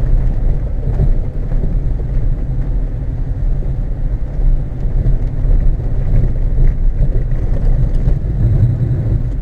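Fiat Tipo 1.9 TD's four-cylinder turbodiesel engine running steadily while driving, heard from inside the cabin, mixed with tyre and road rumble from a frozen dirt track.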